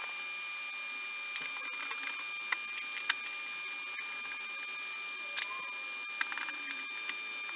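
Hand wiping and scrubbing on a car's lower door panel and wheel: scattered sharp clicks and short rubbing squeaks over a steady hiss with a thin high whine.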